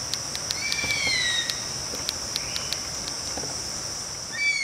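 Nature ambience: a steady high-pitched insect drone, with a bird's whistled call that rises and then slides down, once about half a second in and again near the end. Light, irregular clicks of typewriter keys sound over it.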